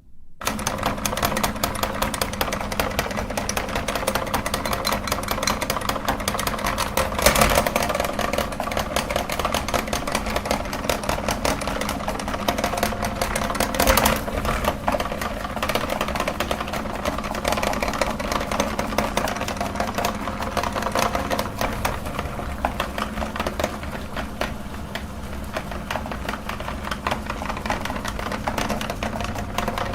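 Electric meat grinder switching on and running steadily, its motor humming while the auger crushes chocolate sticks with a dense crackling. There are louder cracks about 7 and 14 seconds in.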